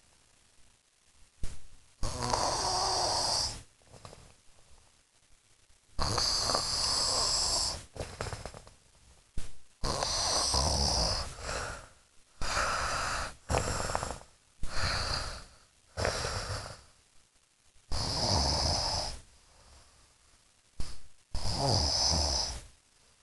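Snoring in sleep: a loud snore every two to four seconds, some over a second long and some short, with quiet gaps between breaths.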